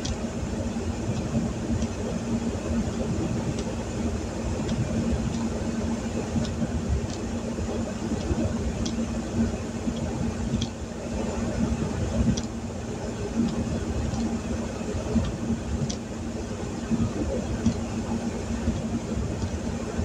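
Heavy rain falling on a vehicle's roof and windshield, heard from inside the cab, with a steady low hum underneath and single drops ticking sharply on the glass now and then.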